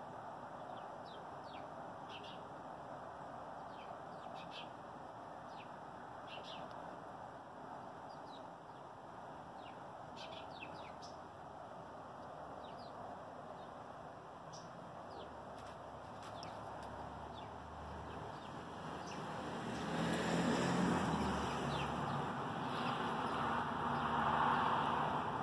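Small birds chirping in short, scattered calls over a steady background hum. About twenty seconds in, a louder rushing noise swells up and stays to the end.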